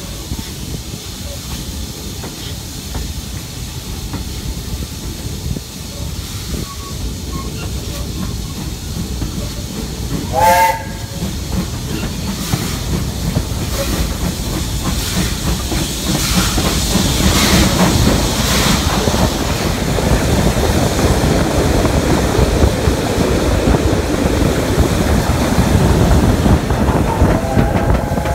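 Steam train running, heard from an open carriage window, with a short blast of the locomotive's whistle about a third of the way in. The running noise grows louder through the second half, and another whistle starts just before the end.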